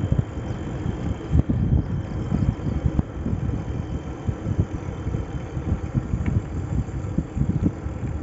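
Wind buffeting the microphone of a camera on a moving bicycle, an uneven, gusty low rumble.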